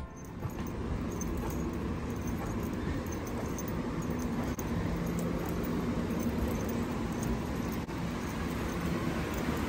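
Steady background rumble with a low hum underneath and faint light ticking, as inside a moving vehicle.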